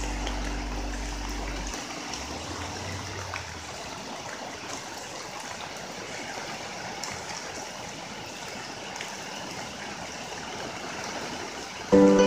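Swollen, flooded creek rushing steadily past. Music fades out over the first few seconds, and plucked-string music starts abruptly at the very end.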